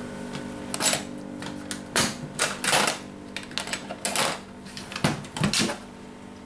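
Metal latches on an old suitcase being flipped and snapped open by hand: a series of sharp metallic clicks and snaps at irregular intervals.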